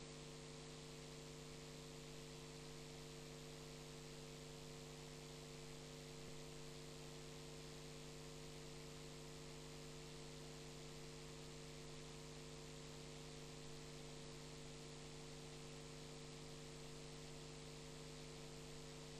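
Faint, steady electrical mains hum with a light hiss behind it, unchanging throughout.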